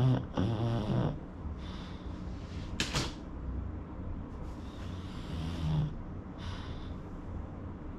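Pug snoring in its sleep: noisy breaths in and out, a few with a low rattling snore, and one short sharp noise about three seconds in.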